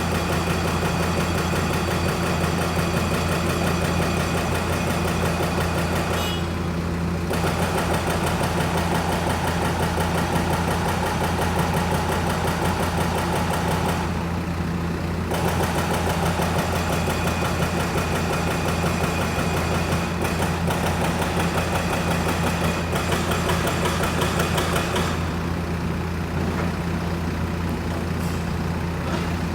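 Small excavator's engine running steadily with a deep hum; the higher hiss drops out briefly a few times.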